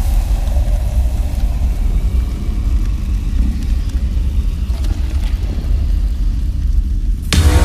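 A steady, loud low rumble with a faint hiss above it. Music with sustained tones cuts in abruptly near the end.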